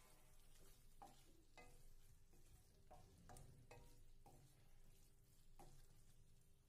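Faint stirring: a wooden spatula scraping and turning okra in thick masala in a stainless steel kadai, several separate strokes about a second apart.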